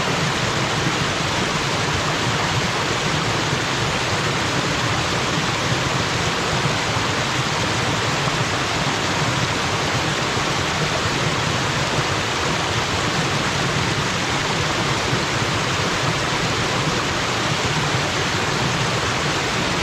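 Waterfall pouring steadily: an even, unbroken rush of falling water with a low rumble beneath it.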